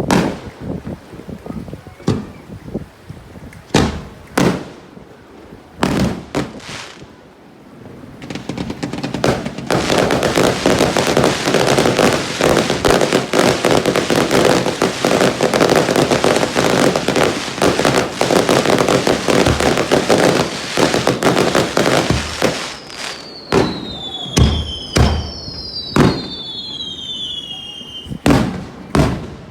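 Fireworks display: separate aerial shell bursts every second or two, then a dense crackling barrage lasting about twelve seconds, then several whistles falling in pitch among more loud bangs near the end.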